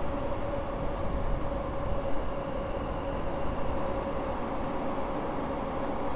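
Train crossing the railway bridge overhead: a steady low rumble with a held hum that does not rise or fall.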